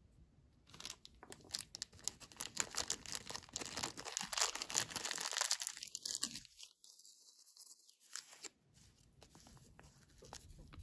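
Clear plastic toy bag crinkling and being torn open between gloved fingers: a dense run of crackles that builds, is loudest a little past the middle, and stops about eight seconds in. A few light paper rustles follow.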